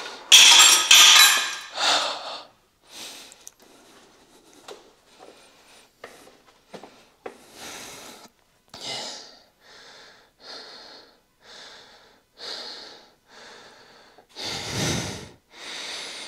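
A man breathing hard: a long heavy breath just after the start, then quick short breaths in steady succession, and another heavy breath near the end. This is panting from the effort of a heavy lifting set.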